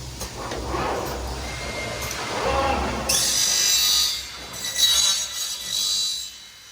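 Machinery of a PVC window welding and corner-cleaning line running. A low hum gives way about three seconds in to two loud, high-pitched noisy bursts, each lasting a second or so, before the noise falls away near the end.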